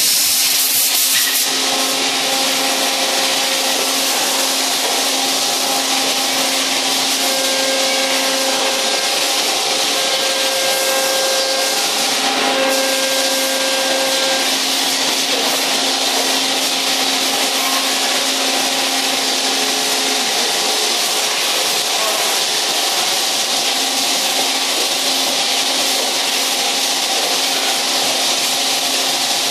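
Steady machine noise of a row of CNC machining centres running on a shop floor: a loud, even hiss with a few steady hums and whines that drop in and out.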